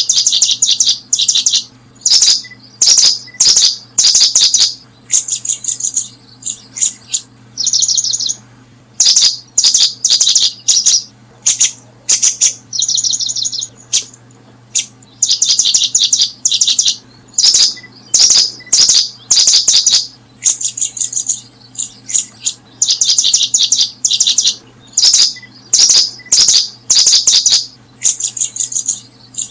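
Small birds chirping in rapid, buzzy trilled phrases, one after another about every second with short gaps, mixed with brief sharp clicks.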